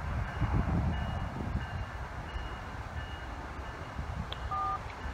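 Low rumble of freight cars being shoved slowly, with an electronic back-up alarm beeping steadily about every 0.7 s.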